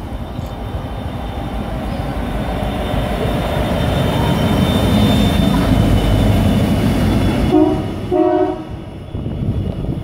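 TT-class diesel locomotive TT132 running light engine past at speed, its engine and wheels growing louder as it approaches and passes close by. About eight seconds in it sounds its horn in two short blasts, then the sound falls away.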